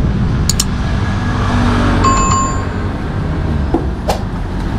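Steady low rumble of street traffic, with a few light clicks and a brief ringing tone about two seconds in.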